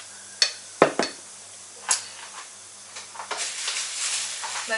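A metal spoon stirring runny minced-meat filling in an enamel bowl, clinking against the bowl four times in the first two seconds, then a rustling noise that builds near the end.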